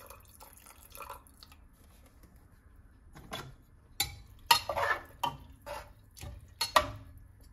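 Water and a metal spoon in a pressure cooker of rice: irregular clinks, scrapes and splashes, faint at first and busier from about three seconds in.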